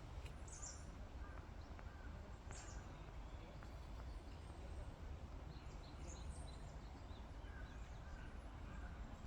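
A few short, high bird chirps scattered over a faint low rumble.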